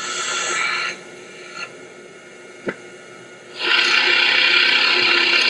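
Snoring: a short snore at the start, then a longer, louder snore of about two seconds beginning roughly three and a half seconds in.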